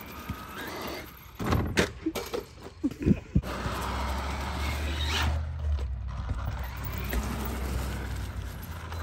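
A run of sharp knocks and clatters, like an RC truck hitting and bouncing over hard ground. About three and a half seconds in, a steady rushing noise with a low rumble takes over.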